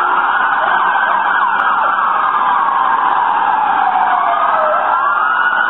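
Several police car sirens wailing at once, their pitches overlapping; one slow wail falls steadily for a few seconds and then rises again near the end.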